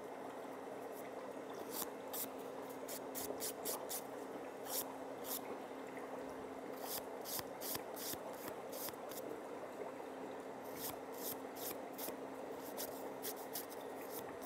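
Nail file scraping across toenails in short, quick strokes, coming in runs of several strokes with brief pauses between.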